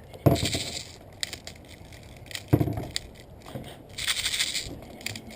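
Knocks, clicks and rattling from an SG9000 CO2 airsoft shotgun being reloaded with a fresh load of rounds. There are two sharp knocks about two seconds apart, with short hissy rustles in between.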